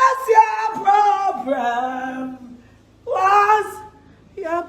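A woman singing unaccompanied in two short phrases with long held notes, breaking off briefly near the end.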